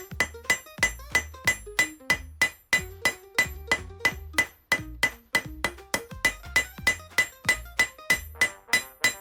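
Cross-peen hammer striking hot steel on an anvil in a steady rhythm, a little under three blows a second, each blow ringing from the anvil: texturing and widening forged rose petals.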